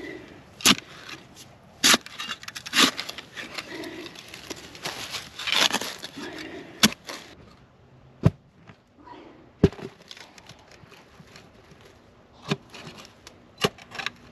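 Steel shovel blade being driven down into clay soil, with sharp strikes every second or two and scraping, crumbling dirt between them, as a chimney hole is dug through into an underground fireplace. Clods of earth drop into the fireplace cavity as the hole breaks through.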